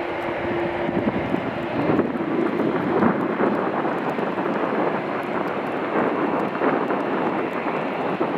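Airbus A330 jet engines running with a steady rushing noise, with wind on the microphone. A steady whine drops out about two seconds in.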